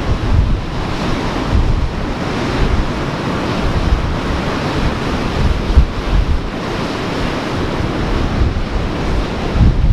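Ocean surf washing steadily, swelling and easing, with wind buffeting the microphone in low gusts.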